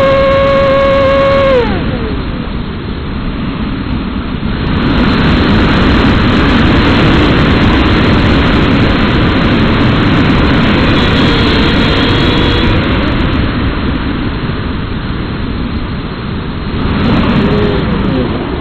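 RC model plane's motor and propeller whining at a steady pitch, then throttled back about a second and a half in, the pitch sliding down and away. Air then rushes over the plane-mounted microphone as it glides, with a faint brief rise and fall of motor pitch near the end.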